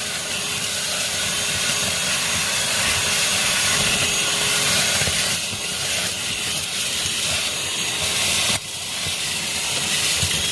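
Shark UltraCyclone Pro cordless handheld vacuum running steadily with a rushing hiss and a faint steady whine as it cleans a dirty car. The sound dips briefly about eight and a half seconds in, then picks back up.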